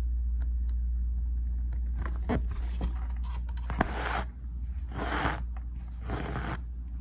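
Embroidery needle and thread worked through fabric: a few light taps, then three rasping pulls of thread about a second apart in the second half, over a steady low hum.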